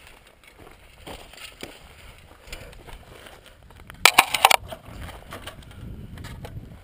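Scattered small knocks and rustles, then a loud crunching clatter lasting about half a second, about four seconds in.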